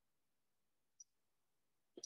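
Near silence: room tone, with one faint short click about a second in.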